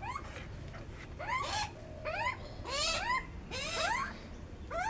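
Pet parrot giving a string of short rising squeaky calls, several to a second in bursts, begging for food.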